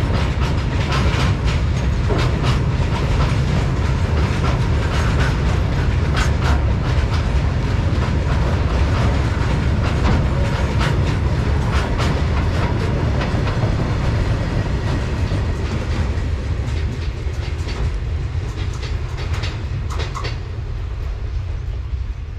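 Freight train wagons rolling past at speed: a heavy steady rumble with repeated clacking of wheels over rail joints, easing off gradually over the last several seconds.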